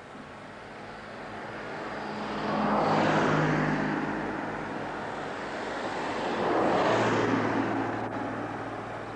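Cars passing close by on a road, one about three seconds in and another about seven seconds in, each engine and tyre noise swelling and then fading away.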